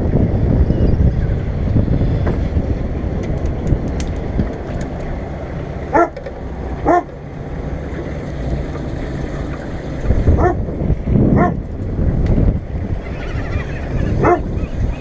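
A dog barks five times, single short barks spaced a second or more apart, over the steady low rumble of the boat and wind on the microphone.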